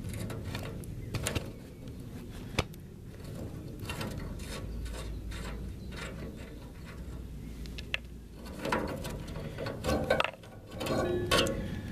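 Small metal clicks, scrapes and knocks as a nut is worked off a rusty bolt on a wheelbarrow's steel frame, by hand and with a tool, after the bolt has come free.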